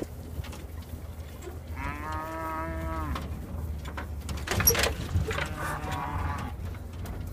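Cattle mooing: one long, drawn-out moo about two seconds in, then a sharp knock, then a second, fainter moo about a second later, over a steady low rumble.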